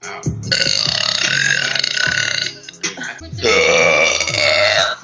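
A woman belching: two long, loud, drawn-out burps of about two seconds each, with a short pause between them.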